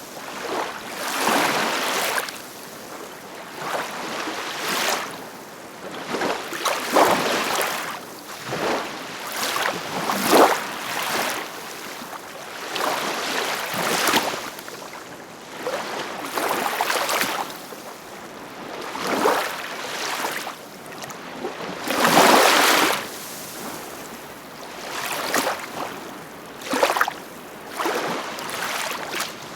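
Ocean waves washing in and breaking, each swell of surging water rising and falling every one to three seconds; the loudest one breaks about three-quarters of the way through.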